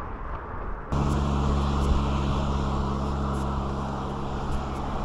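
A steady, loud mechanical drone, like a motor running at constant speed, with a rushing noise over it. It starts suddenly about a second in and holds level without rising or falling.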